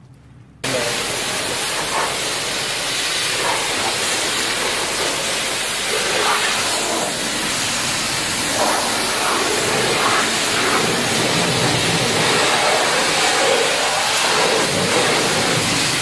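High-pressure spray wand at a self-serve car wash blasting water onto a car's body panels and wheel: a steady, loud hiss that starts about half a second in.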